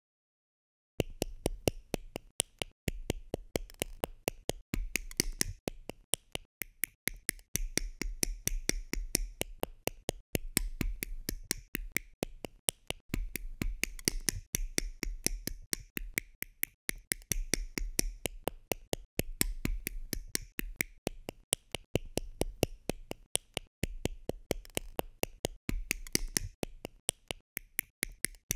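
Hard plastic miniature parts being snipped off a sprue: a rapid run of sharp clicks, several a second, starting about a second in.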